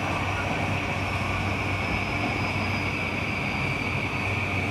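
E235 series electric train heard from inside its motor car, moving slowly as it pulls into a station: a steady high whine from the SiC-VVVF inverter and motors over wheel-on-rail rumble and a low hum, with a fainter tone sliding slowly down in pitch as the train slows.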